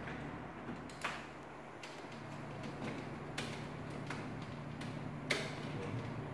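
A few sharp, irregular clicks and taps from hands and tools working wiring and circuit breakers at an electrical distribution board, over a steady low hum.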